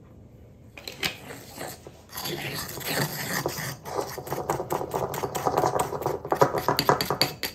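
Metal spoon stirring a thick icing-sugar glaze in a small glass bowl: rapid scraping with quick clinks of the spoon against the glass, starting about two seconds in.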